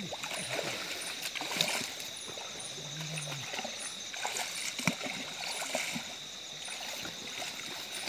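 Water splashing and trickling in a river at night, under a steady high-pitched insect buzz with faint regular chirps. Two sharp clicks stand out, about a second and a half in and again near five seconds.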